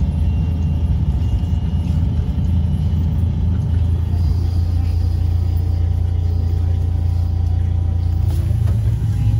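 Trolleybus riding along, heard from inside the passenger cabin: a steady low rumble from the running gear and road, with faint, steady whining tones from the electric drive.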